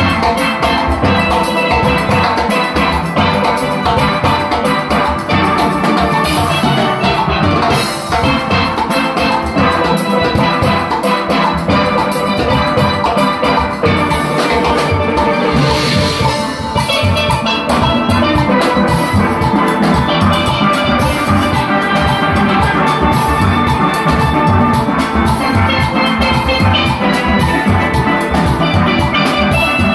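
A steel orchestra playing: many steel pans striking quick melodic notes together over a steady drum beat.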